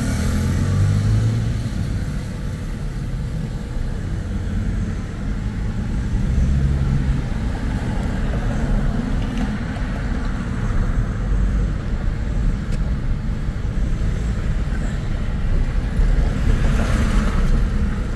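Steady low rumble of a car's engine and tyres, heard from inside the cabin while driving, briefly louder near the end.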